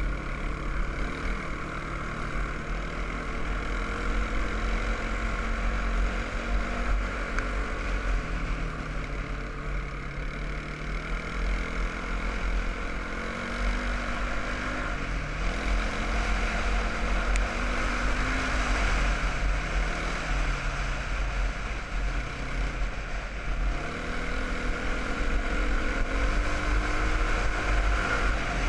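Single-cylinder four-stroke quad bike engine running under way, its pitch rising and falling as the throttle opens and eases, with a heavy low rumble of wind on the microphone.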